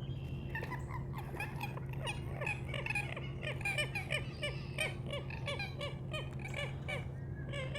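Common gallinule calling: a long series of harsh clucking notes, each dropping in pitch, about three a second, over a steady low hum.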